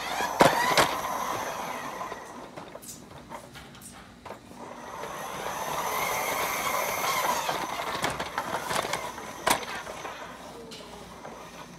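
Toy mixer truck rolling across a hard floor, a rumbling whir that swells and fades, with two sharp knocks right at the start and another near the end as it bumps into things.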